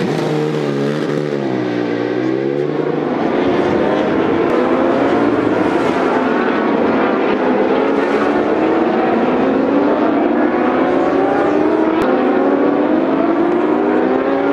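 Racing motorcycle engines: a superbike pulls away with its revs wavering up and down for the first few seconds, then bikes accelerate on track, the engine pitch climbing in long sweeps and dropping back as they shift up.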